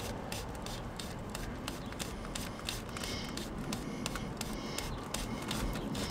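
Spin-on oil filter on a forklift's four-cylinder engine being unscrewed by hand: many small irregular clicks and faint scraping over a low steady hum.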